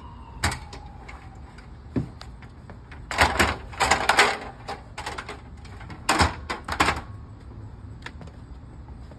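Aluminum multi-position ladder being folded and moved, giving metal clanks and rattles. The loudest clatter comes about three to four and a half seconds in, with a few single knocks before and after. A siren falls away in the first second and a half.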